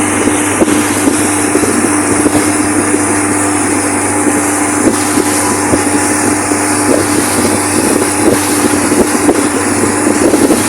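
Motorboat engine running steadily at speed, a constant hum over a rushing noise, with wind buffeting the microphone.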